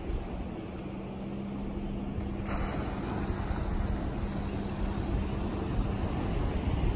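Surf washing against shoreline rocks with wind on the microphone, growing louder from about two and a half seconds in, under a faint steady engine hum that stops near the end.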